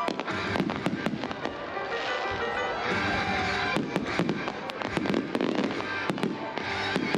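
Fireworks going off in quick succession, many sharp bangs and crackles, over music.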